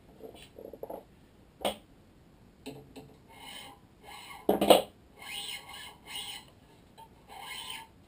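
Handling noise on a badminton stringing machine: a sharp knock, then a louder clunk about halfway as the racket is turned on the machine's turntable. Between and after them come several short rasping pulls of string being drawn through the racket's grommets.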